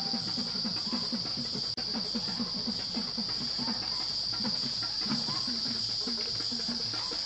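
A steady high-pitched drone from a chorus of forest insects. A low pulsing sound runs underneath it at about three beats a second.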